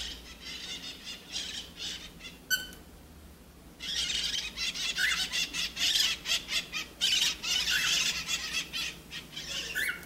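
Lutino cockatiel chattering at its reflection in a mirror: a few short whistled chirps, a brief lull, then a fast run of scratchy chatter notes with a few quick rising squeaks.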